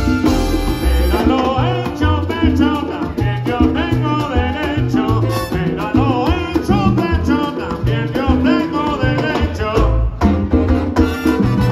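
Live salsa band playing, with upright bass and congas driving the rhythm under pitched melodic lines.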